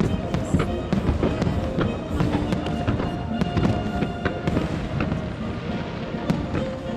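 Aerial fireworks shells bursting in rapid succession, dense bangs and crackles one after another, with music playing along.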